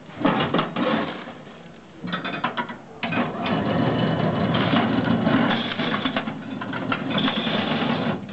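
Gold Medal Olde New Orleans 1087 block ice shaver starting up about three seconds in and running steadily, shaving a block of ice into snow that falls into a plastic tub. Before it starts, a few clunks of the machine being loaded and closed.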